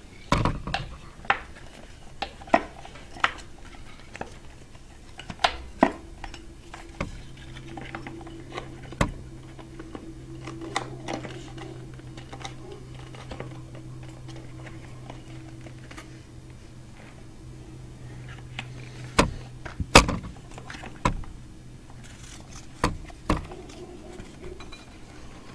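Scattered clicks and light metallic clinks of a timing belt being fitted by hand around an engine's sprockets and pulleys. A low steady hum comes in about seven seconds in.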